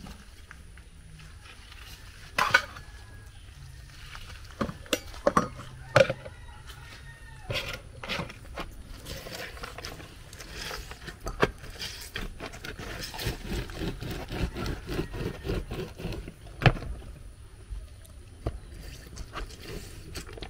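Scattered sharp knocks and clatter, about a dozen spread irregularly, from fruit being cut and handled for juice, over a steady low rumble.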